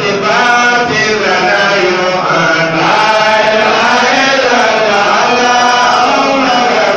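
Men's voices chanting together in a continuous, melodic Islamic devotional chant (dhikr), held and sliding tones without pause.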